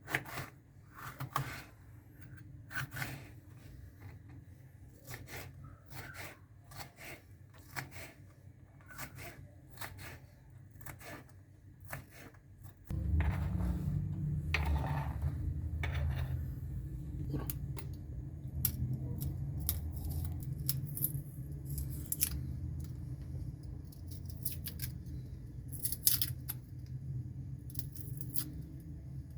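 Knife cutting vegetables on a cutting board: irregular sharp clicks and knocks. About halfway through, a steady low hum starts and carries on under the cutting.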